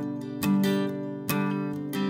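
Steel-string acoustic guitar strummed: two chords about a second apart, each left to ring.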